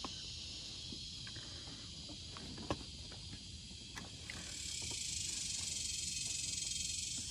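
Steady high-pitched insect drone, growing louder about halfway through, with a few light clicks of a wrench on the carburetor's choke-plunger fitting.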